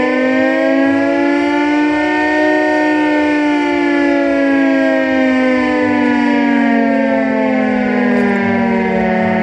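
Air-raid siren sounding the warning to take cover. It gives one long wail that rises slowly in pitch and then sinks, reaching its lowest point near the end.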